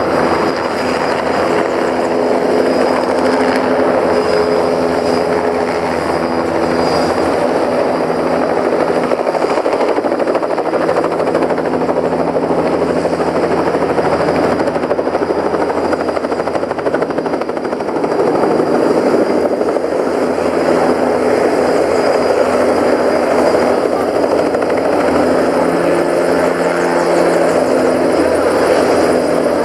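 Bell 206 JetRanger helicopter running steadily, its single turbine engine and rotor making a loud continuous noise with a thin high whine above it.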